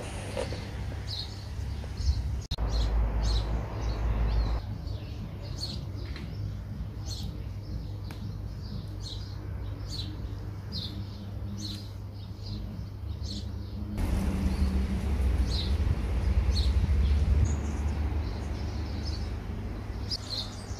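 A small bird chirping, short high chirps repeated about once a second, over a low rumble that swells for a couple of seconds near the start and again for a few seconds past the middle.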